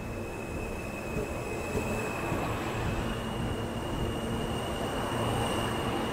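R160 subway train moving slowly along the platform as it pulls out. A steady propulsion whine steps up in pitch about three seconds in, while the rumble of wheels on rail grows louder.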